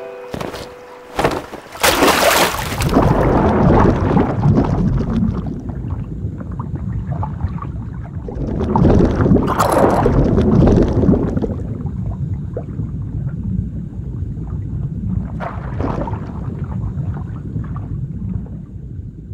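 A splash into water about two seconds in, then a muffled underwater rumble with bubbling that swells up twice, around ten seconds and again near sixteen seconds.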